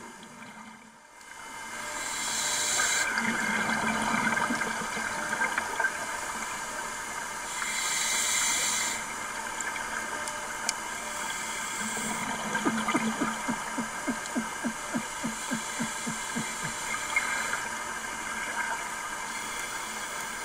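Scuba diver breathing through a regulator underwater, with two hissing bursts of exhaled bubbles. Past the middle comes a rapid series of short low grunts, about three or four a second, made by the diver to imitate a grouper.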